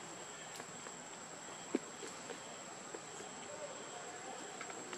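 Steady high-pitched insect drone over faint outdoor hiss, with a few faint clicks and one short, sharp knock a little under two seconds in.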